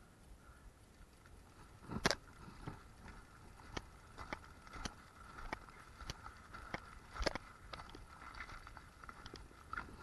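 Vitus hardtail mountain bike rattling over a rough gravel trail: scattered clicks and knocks from the frame, chain and handlebar-mounted camera, with two louder jolts about two seconds in and about seven seconds in.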